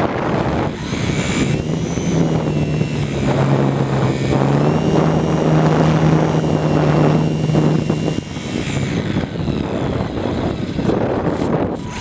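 Model airplane's motor and propeller heard from a camera mounted on the plane: a steady hum with a thin higher whine over rushing wind noise. The hum drops away about eight seconds in, leaving mostly wind.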